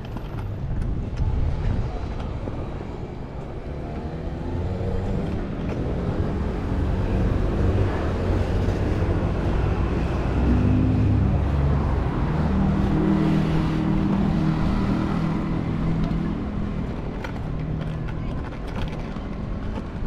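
Road traffic: a motor vehicle's engine passes over a steady low rumble, loudest around the middle.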